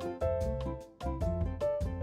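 Background music: an upbeat tune with a steady beat, with piano or keyboard notes over a bass line.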